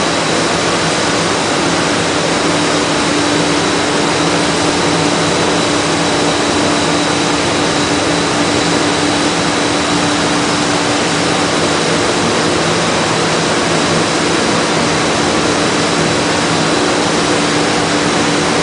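Busellato Easy Jet CNC panel machining centre's equipment running steadily: a constant loud rush of air with a low hum and a thin high whine.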